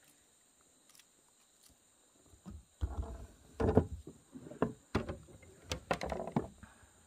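After a quiet start, a run of irregular thumps, scuffs and splashes begins about two and a half seconds in, as a hooked fish is brought alongside a kayak and a landing net is handled.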